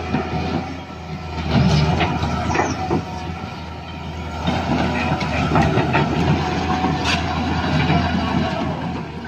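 Small electric motors and plastic gearboxes of toy radio-controlled construction vehicles running, with scattered clicks and knocks over a steady low hum.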